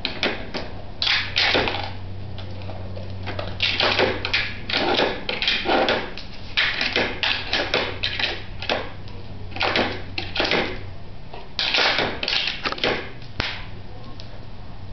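Gumball-machine kibble treat dispenser being worked by a dog: repeated clusters of sharp clicking and clattering from its mechanism and the kibble, each lasting a second or two, with short pauses between. The machine appears to be low on kibble.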